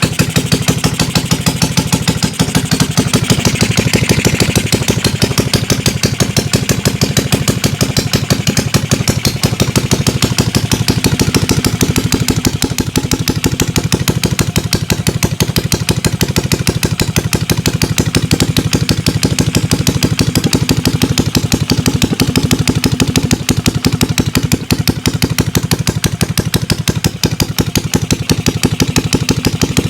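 Small motorcycle engine running steadily at idle, with an even, rapid pulsing beat.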